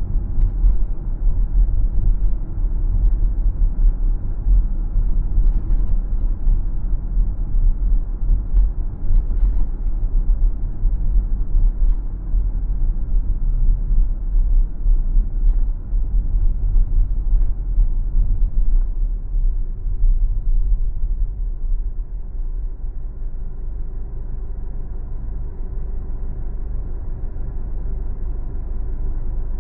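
Car driving, heard through a dashcam: a deep, fluctuating road and tyre rumble. About two-thirds of the way through it settles into a steadier, slightly quieter drone.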